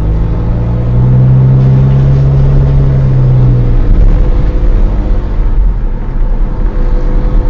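Engine and road rumble of a moving vehicle, recorded by its dashcam while it gently speeds up at around 60 km/h. A steady low drone sits over the rumble and eases off about three and a half seconds in.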